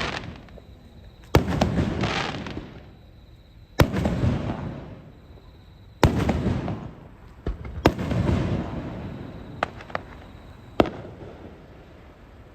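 Aerial fireworks shells bursting: four big booms about two seconds apart, each followed by a long rolling, fading tail, then a few smaller, sharper reports near the end.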